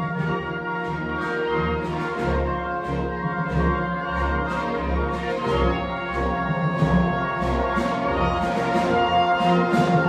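Orchestral music with prominent brass over repeated low bass notes.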